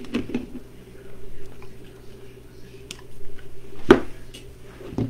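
Hands working craft wire on a wreath: scattered rustles and light clicks, with one sharper click about four seconds in, as the wire is twisted tight. A steady low hum runs underneath.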